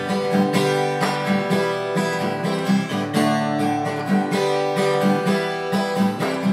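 Acoustic guitar strummed in a steady rhythm, ringing chords with evenly spaced strokes.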